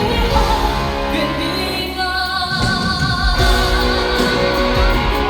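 Live concert music: a male singer's high voice holding notes that waver with vibrato, over the band's accompaniment.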